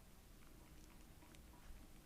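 Faint, soft wet clicks and smacks from three-week-old toy poodle puppies nursing, a few scattered clicks over a low steady hum, near silence overall.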